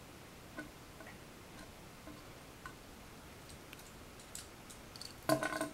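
Faint, scattered plastic clicks from a Sentinel Prime Transformers action figure being handled and turned in the hands, over quiet room tone.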